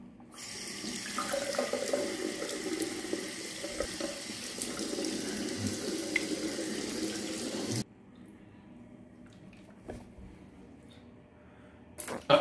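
Bathroom sink tap running, water splashing over a camera-shaped toy water gun held in the stream as it is filled; the flow cuts off suddenly about eight seconds in. A short sharp knock near the end.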